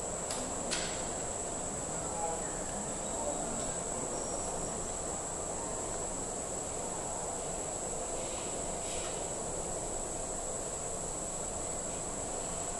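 Steady high-pitched insect drone from the street trees over the even hum of a busy pedestrian street, with a few short clicks in the first second.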